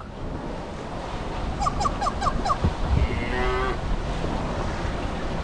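Wind and rushing water around a sailing yacht under sail. About a second and a half in there are five quick high pips, about four a second, and about three seconds in a falling tone with overtones lasting under a second.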